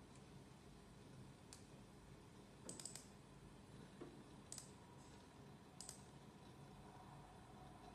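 Faint clicks of a computer mouse: a few spaced single and double clicks.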